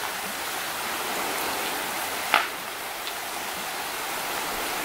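Shallow forest creek flowing steadily, an even rushing of water, with one short sharp click a little over two seconds in.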